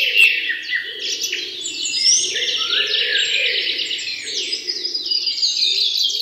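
Birds chirping and twittering in a dense, continuous chorus of quick high notes and trills, with a fainter lower fluttering sound underneath.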